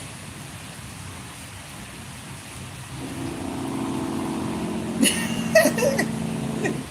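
Steady hiss of rain. About three seconds in, a vehicle engine's steady hum fades in, holds, and stops suddenly near the end.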